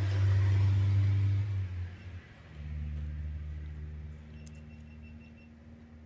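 A motor vehicle's engine running close by, a steady low hum that drops away about two seconds in, followed by a second, lower engine hum that slowly fades.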